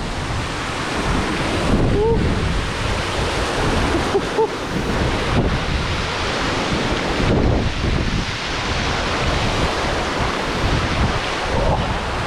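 Steady, loud rushing roar of a waterfall, with wind buffeting the microphone in the low end.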